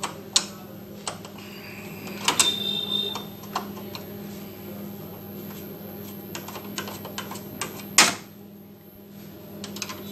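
Screwdriver turning out a screw from the metal side frame of a Xerox WorkCentre copier's IBT belt unit: scattered clicks and scrapes of the tool on screw and frame, with a brief squeak about two and a half seconds in and one loud click about eight seconds in. A low steady hum runs underneath.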